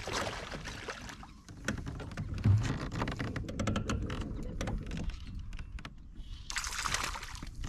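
Fishing reel being cranked on a kayak, with rapid clicking from the reel and gear and a dull knock on the hull about two and a half seconds in. A brief burst of hiss near the end.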